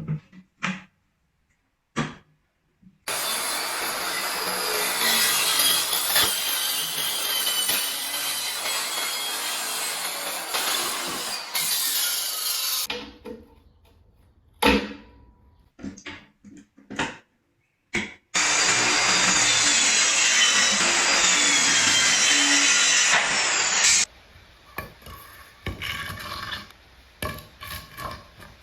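Electric power saw cutting wood in two long runs, its motor pitch wavering under load, with short knocks and clicks of wood and tools between the cuts.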